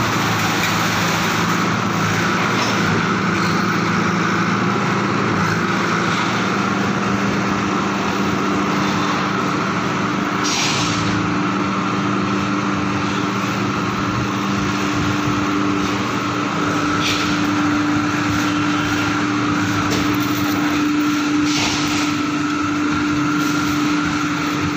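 Steady, loud industrial machinery drone with several constant hum tones, broken by three brief hisses.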